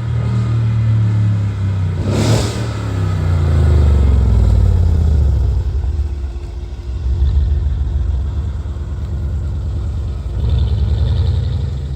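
Tuned Mercedes-AMG CLS63 S twin-turbo V8 revving: a short rushing burst about two seconds in, then the revs fall and settle to lower, steadier running, with smaller rises of revs around seven and ten seconds in.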